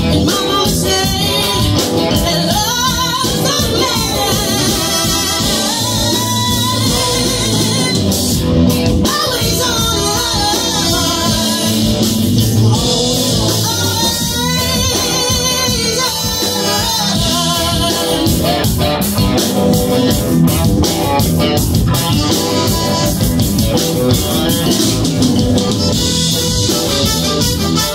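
Live funk band playing, with drums, bass, electric guitar, keyboard and horns under a woman singing lead.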